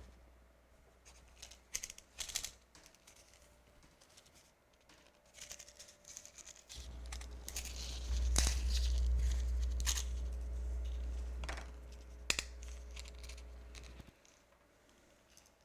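Material being handled, with rustling, crinkling and scattered sharp clicks. A low steady hum starts about seven seconds in and stops shortly before the end.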